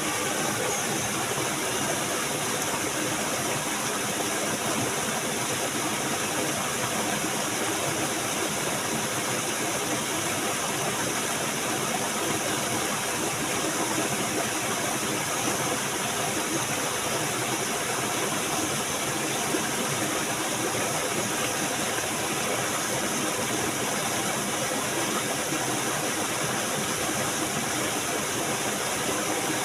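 Steady rushing of flowing water, an even hiss that holds at one level without a break.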